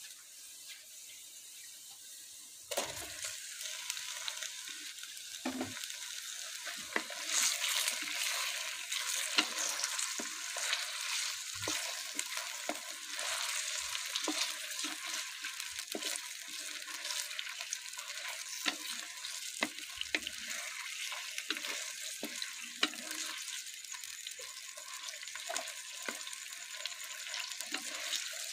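Food sizzling in hot oil in a karahi, starting suddenly about three seconds in and going on steadily. Irregular knocks and scrapes of a spoon stirring the pan run through it.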